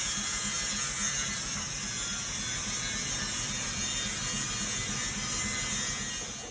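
A machine running steadily: a loud hiss over a fast low rhythmic pulsing, fading and cutting off at the very end.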